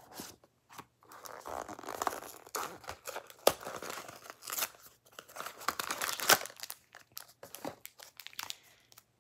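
Gift packaging crinkling and tearing as a small gift box is unwrapped and opened by hand: irregular rustling with a few sharper rips, the loudest about three and a half and six seconds in.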